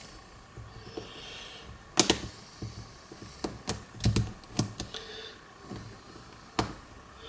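QiYi Mofangge WuQue 4x4 speedcube being handled and turned: a scattering of sharp plastic clicks and clacks, the loudest about two seconds in.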